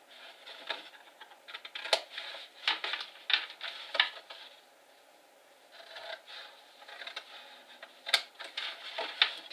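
Scissors snipping through cardstock, with the paper rustling as it is handled: a run of sharp snips in the first half, a short pause, then more snips near the end.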